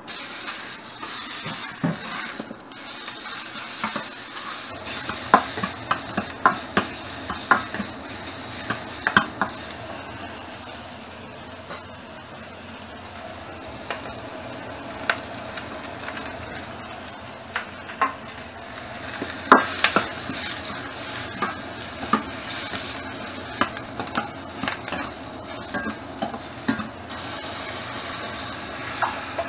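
Pork, then Chinese cabbage and leek, stir-frying in oil in a wok: a steady sizzle with frequent sharp clinks of metal utensils against the pan.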